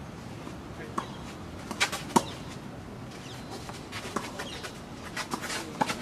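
Tennis ball struck by rackets and bouncing on the court during a doubles rally: irregular sharp pops, the loudest about two seconds in.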